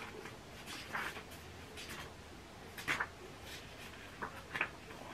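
Paperback book pages being leafed through, a few short papery swishes and flicks as she searches for a page.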